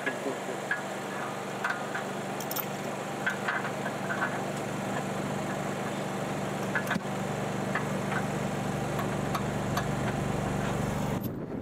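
Engine idling steadily as an even low hum, with a few faint light clicks over it. The hum breaks off abruptly just before the end.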